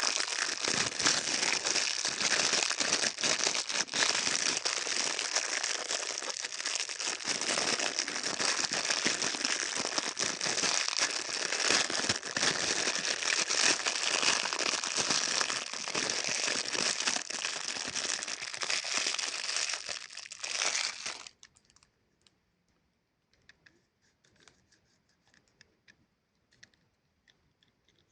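Plastic Chupa Chups lollipop wrapper being crinkled and torn open in close-up, a dense continuous crackle. It stops suddenly about 21 seconds in, leaving only faint scattered rustles and clicks.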